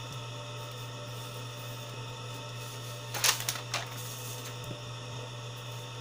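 Steady electrical mains hum, with a brief scrape and clatter a little over three seconds in and a smaller one just after, as a hand handles the plastic alarm box on the table.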